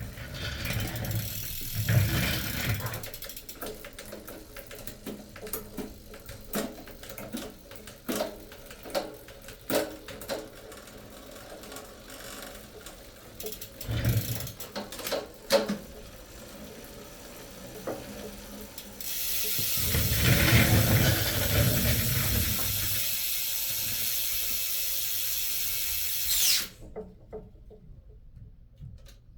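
Irregular ratcheting, clicking mechanical sounds. Partway through, a steady, louder whirring noise runs for several seconds and then cuts off suddenly.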